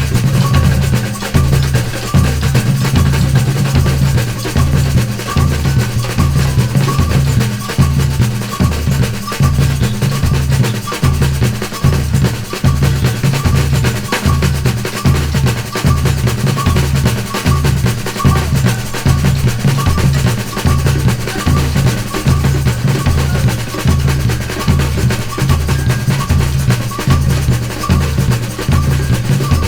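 Brazilian percussion ensemble playing a batucada-style groove: deep bass drums keep a steady, even pulse under snare rolls, rattling and a repeated higher accent.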